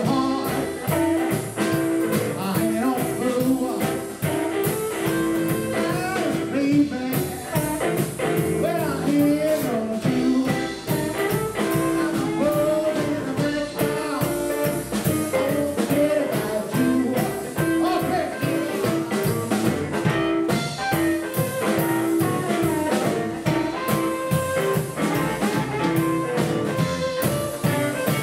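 Live blues band playing: harmonica cupped to a handheld microphone, over archtop electric guitar, double bass and drum kit.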